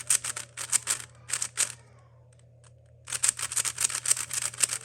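Plastic 3x3 speed cube being turned fast during a solve: quick runs of clicking layer turns, a pause of about a second in the middle, then another quick run.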